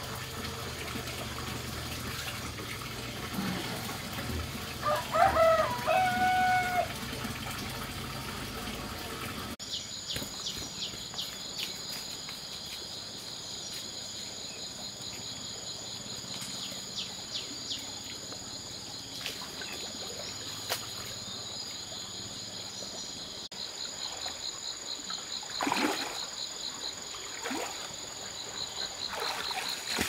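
Water trickling in a stream. About five seconds in, a rooster crows: a few short notes, then one long held note. After that a steady high trill with a pulsing note runs on, and near the end there are splashes in the water.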